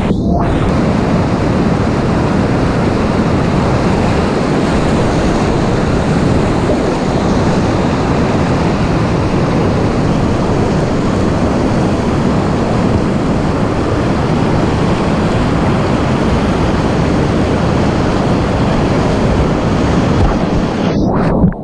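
Loud, steady rush of whitewater on a mountain river, a continuous roar of churning water. It cuts off abruptly near the end.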